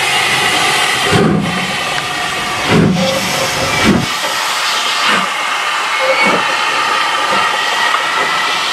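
SR U class 2-6-0 steam locomotive getting away slowly: a loud steady hiss of steam from its open cylinder drain cocks, with slow exhaust chuffs a little over a second apart.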